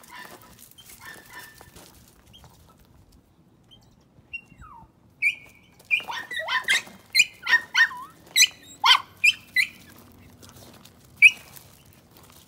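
A run of about fifteen short, sharp, high-pitched animal calls, two or three a second, starting about five seconds in, with one more near the end.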